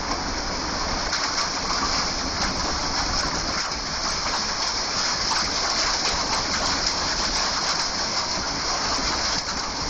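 Wind-driven hail and heavy rain pelting down in a severe windstorm: a steady, dense hiss with scattered sharp ticks of hailstones striking, and wind rumbling on the phone's microphone.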